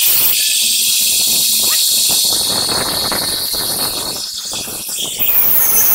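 Electric arc welding on a truck's axle housing to close holes in it: a steady crackling sizzle, with short breaks a little past four seconds in.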